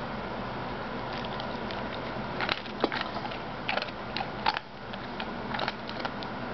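A dog chewing dry kibble taken from a hand: a run of sharp crunches and clicks, loudest between about two and five seconds in, over a steady hiss.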